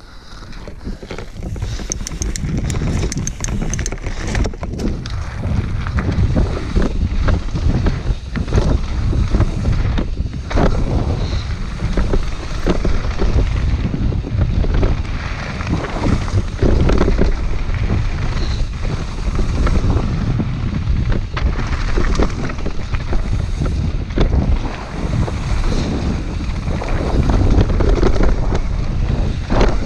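Wind buffeting an action camera's microphone during a fast mountain-bike descent on dirt singletrack. Tyres rumble over the dirt and rocks, with frequent knocks and rattles from the bike over bumps. The noise builds over the first few seconds as the bike picks up speed.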